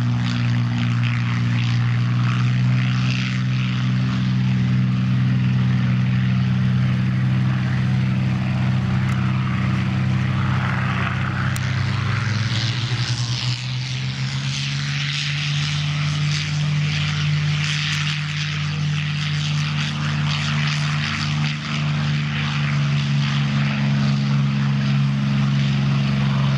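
Propeller warbirds' V-12 piston engines, a Supermarine Spitfire and then a North American P-51 Mustang, running steadily at high power on the runway. About halfway through, the engine note shifts to a different pitch as one aircraft gives way to the other.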